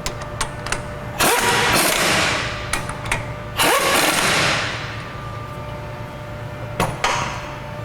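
A power wrench runs in two bursts of about a second each, driving the brake caliper-to-bracket bolts tight. A short sharp noise follows near the end.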